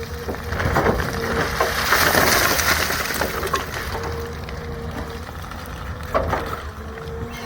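Excavator engine running steadily with a constant hum, a louder rush of noise swelling from about a second in for a couple of seconds, and a few sharp knocks near the end.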